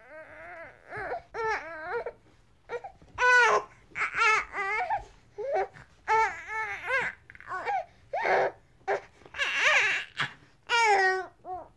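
Infant crying: a string of short, fussy wails that rise and fall in pitch, with short breaths between them and a harsher, strained cry near the end.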